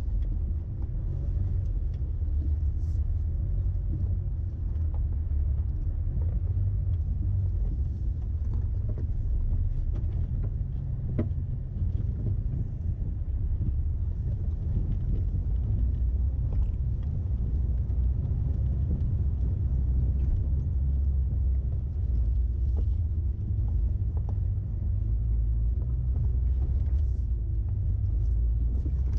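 Steady low rumble of a vehicle's engine and drivetrain as it is driven along, with a few light knocks and rattles.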